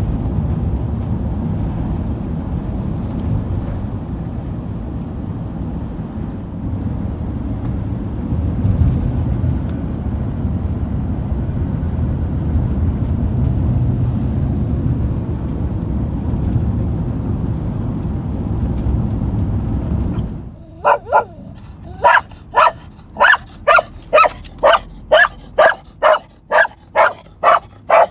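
Steady low rumble of a Ford Transit van driving on studded tyres. About twenty seconds in it cuts off, and a dog starts barking over and over, about two to three barks a second.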